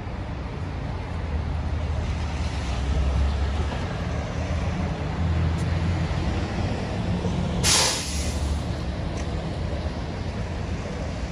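New Flyer Xcelsior XD60 articulated diesel bus running at a stop, its engine a steady low rumble, with one short, sharp hiss of released air from its air system about eight seconds in.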